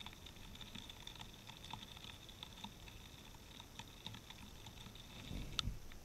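Small birds pecking at sunflower seeds on snow close to the microphone: faint, irregular little ticks and taps, sped up to double speed. Near the end comes a louder soft flutter with a sharp click as birds beside the camera fly off.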